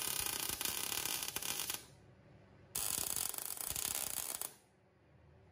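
MIG welder arc crackling as two short welds are laid on steel: the first stops about two seconds in, and after a pause of about a second a second weld crackles for nearly two seconds, then cuts off.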